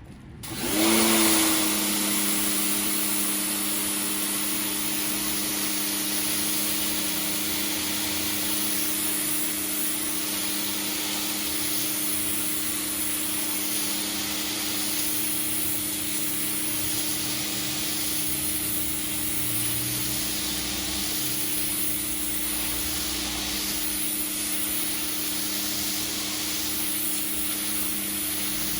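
Pressure washer starting up about a second in, its pump motor rising quickly to a steady running tone, then running steadily with the hiss of the water jet spraying concrete.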